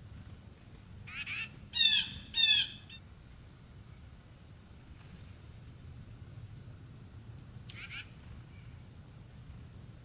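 Small songbirds of the tit family giving harsh, buzzy scolding calls. One call comes about a second in, two louder ones follow around two seconds in, and another comes near eight seconds, with a few thin high chips scattered between them.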